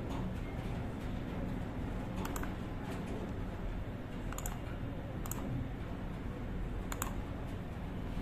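A handful of sharp, separate clicks from a computer mouse and keyboard, two of them close together a little over two seconds in, over a steady low hum.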